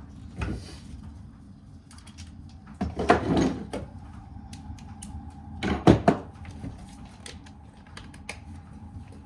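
Three clusters of knocking and clatter, roughly three seconds apart, the loudest about six seconds in, over a steady low hum: workshop handling of machine parts.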